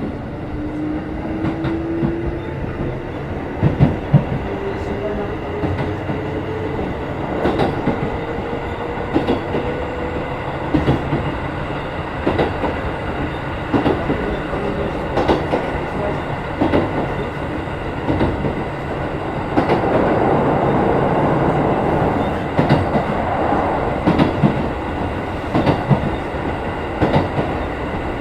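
Running sound inside a Keikyu 1500 series field-chopper-controlled motor car. The motor and gear whine rises in pitch over the first ten seconds as the train gathers speed, and the wheels clack over rail joints throughout. A louder rushing stretch comes about twenty seconds in.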